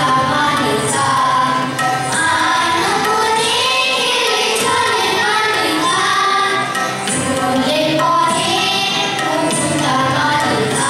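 A group of children and women singing a Bengali song in unison, accompanied by harmonium and tabla.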